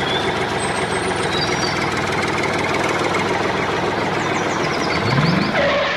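A tractor engine running steadily with a rapid chugging beat. About five seconds in there is a short rising tone.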